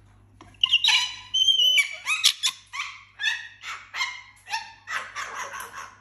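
A string of about a dozen loud, high-pitched animal calls in quick succession, some held and wavering, the last ones harsher and rougher.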